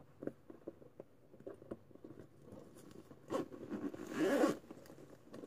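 Close handling noises: a run of light clicks and taps, then two louder rasping strokes, one about three seconds in and a longer one about a second later.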